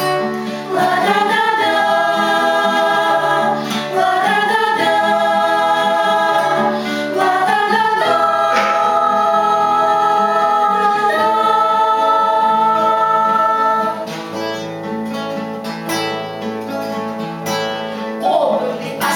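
Voices singing together over acoustic guitar, holding long notes that slide up to a new pitch every few seconds, then quieter for the last few seconds.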